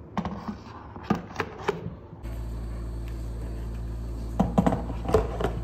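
A few light knocks and clinks of a ceramic mug being handled on a table, in two clusters, near the start and again in the last second or so. From about two seconds in a steady low hum runs underneath.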